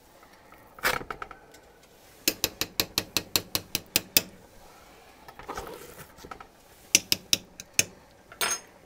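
Metal teaspoon tapping against the rim of the pot as dumpling dough is knocked off into the broth: one tap about a second in, a quick run of about a dozen light taps, a shorter run of five later on, and a last tap near the end.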